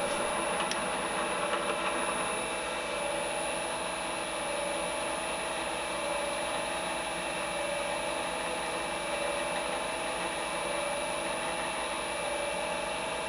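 Small high-speed bench drill running at a steady speed with a constant high whine, its 1.05 mm bit drilling a tapping hole for a 12BA thread into a brass axle box.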